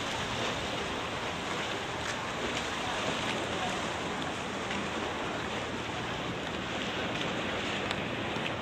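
Steady rushing outdoor noise, even and unbroken, with a few faint ticks and no distinct events.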